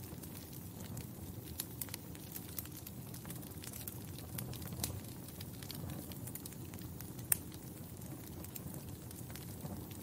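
Log fire crackling in a fireplace: a low steady rumble of flames with irregular small snaps and pops, one sharper pop standing out a little past seven seconds in.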